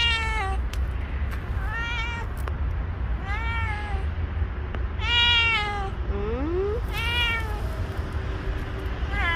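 Tabby-and-white cat meowing again and again, about six short meows spaced a second or two apart, each rising and then falling in pitch.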